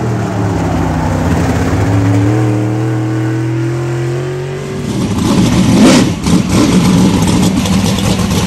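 Dirt-track modified race car engine running hard on track: its note dips and then climbs as the driver comes back on the throttle, turning louder and rougher from about five seconds in.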